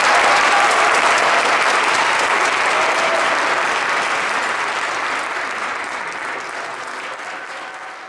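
Audience applauding, the applause slowly dying down.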